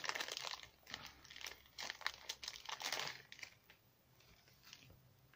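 Clear plastic zip-lock bag crinkling as it is handled and opened, with small paper pieces pulled out of it. The crinkling is dense for about three seconds, then thins to a few faint rustles.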